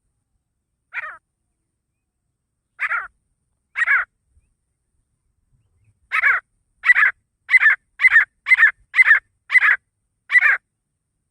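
Male grey francolin (desi teetar) calling: a single harsh call, two more a second apart, then a quickening run of about eight loud calls, roughly two a second.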